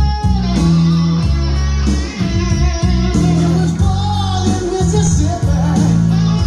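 Guitar-led music with a bass line and a steady beat.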